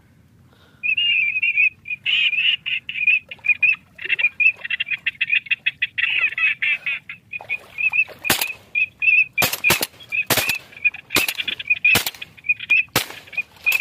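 Duck quacks repeating over and over in a quick, steady rhythm. From about eight seconds in, a series of sharp cracks sounds over the calls.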